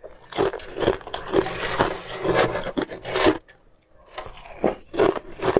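Close-miked crunching and chewing of ice in the mouth, a quick run of crackly bites that breaks off for a moment about three and a half seconds in, then starts again.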